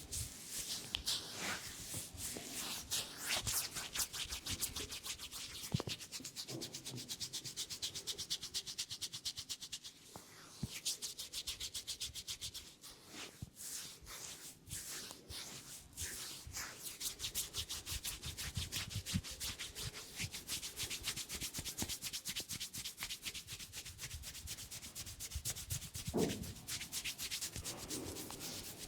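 Hands rubbing briskly through hair and over the scalp in a head massage, a fast, steady run of scratchy strokes.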